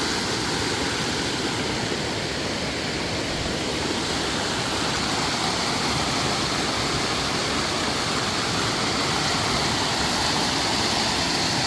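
Steady rush of a mountain creek pouring down a sloping bedrock cascade, a natural rock slide.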